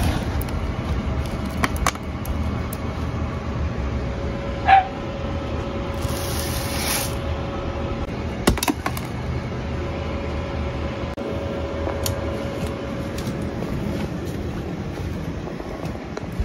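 Raw Japanese brown rice being scooped with a plastic measuring cup and poured into the metal mesh basket of a rice-milling machine. There are scattered small clicks of cup and grain, and a hissing pour of about a second roughly six seconds in, over a steady low hum.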